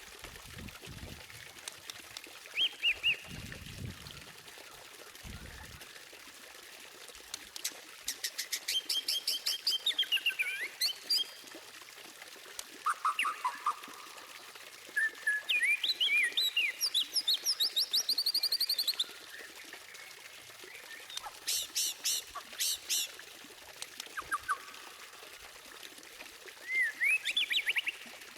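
White-rumped shama (murai batu) singing in separate phrases of fast repeated high notes and slurred whistles, with a burst of rapid, very high stuttering notes about two-thirds of the way through. A steady hiss runs underneath.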